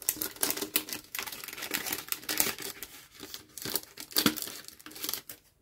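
Crinkly packaging rustling and crackling as it is handled, in quick irregular crackles that thin out near the end.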